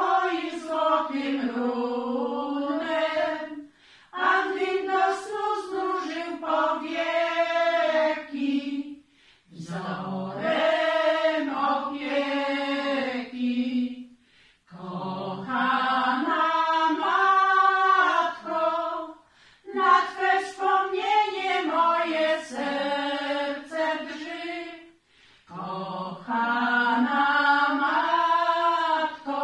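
A group of women singing a cappella: a slow song sung in phrases of about four to five seconds, with a brief pause for breath between them.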